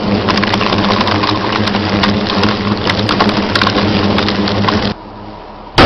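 Steady rushing noise with a low hum and many sharp crackles, which drops away about five seconds in; right at the end a loud explosion goes off, a rock blast on the hillside.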